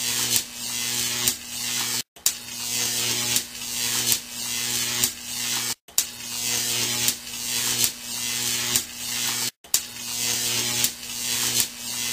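A steady mechanical buzz and hiss over a low hum, with a sharp click about once a second. It cuts out briefly twice and starts again each time, like a repeating loop.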